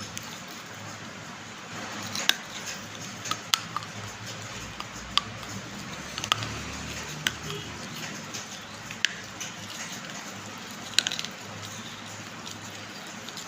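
Pieces of fired clay pot crunching, with about seven sharp snaps every second or two over a steady hiss.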